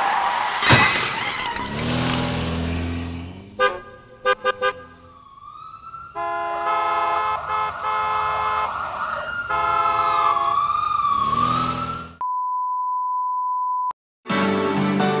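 Intro sound design for a logo animation: a whoosh with a sharp hit, a few quick clicks, then a wavering tone gliding up and down over held chords. This gives way to a steady high beep of about two seconds, a short silence, and then brass news-theme music starting.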